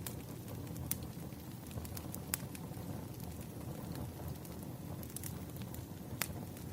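Campfire burning: a steady low rumble of flames with scattered sharp crackles and pops of burning wood, a few standing out louder than the rest.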